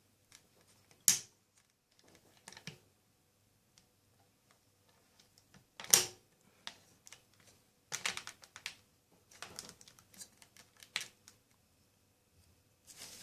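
Condor 2500 toy pistol firing: two sharp snaps, one about a second in and one near the middle, with clusters of smaller plastic clicks and rattles from handling the gun in between.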